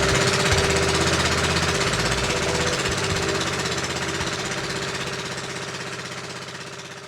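Fast, steady rattling pulse like a small engine running, fading out gradually over the second half.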